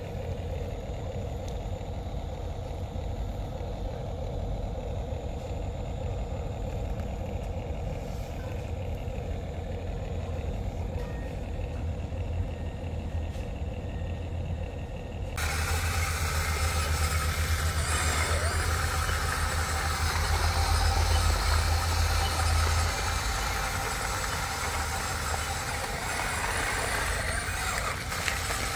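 Steady engine-like running sound with a deep rumble. About halfway through it switches abruptly to a louder, brighter version.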